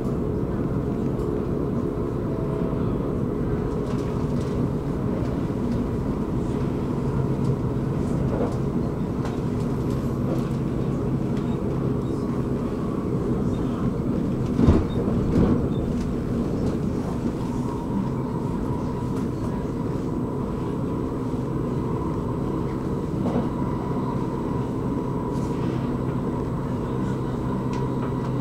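Electric commuter train running along the line, heard from on board: a steady rumble of wheels on rail with a faint steady hum. One sharp knock stands out about halfway through.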